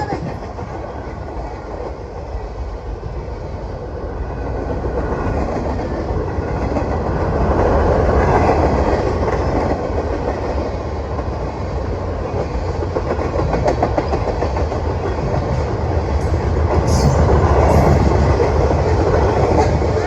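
Freight train cars rolling past, steel wheels clattering on the rails in a continuous rumble that swells and eases as the cars go by.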